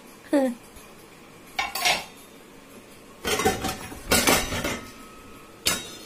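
Metal pots and pans clanking against each other and the dishwasher's wire rack as cookware is taken out, in about four separate clatters, the loudest about four seconds in, with a sharp knock near the end.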